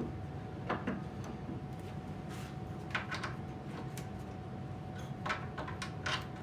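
Scattered light knocks and clicks of pipe legs and wooden blanks being handled and fitted together, in small clusters, over a steady background hum with a faint steady tone.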